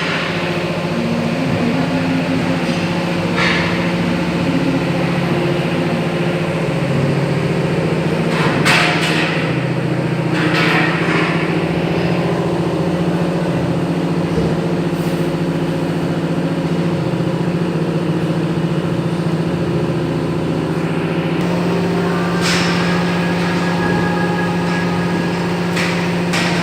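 Double-head aluminium cutting saw with 500 mm blades running with a steady motor hum, broken several times by short rushing, hissing sounds.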